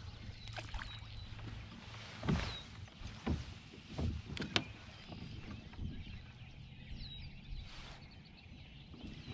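A few separate knocks and bumps against a plastic fishing kayak, over a low steady hum, with a few short bird chirps.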